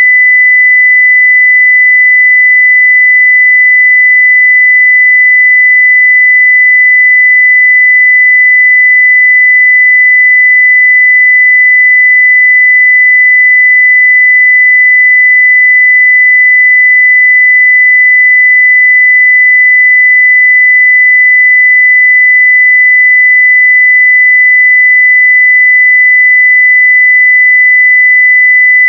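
A continuous 2 kHz sine-wave test tone at full level, steady and unchanging.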